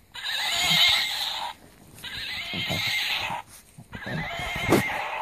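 A plush toy horse's built-in sound box plays a recorded horse whinny three times in a row when squeezed. The whinnies come out thin through the toy's small speaker.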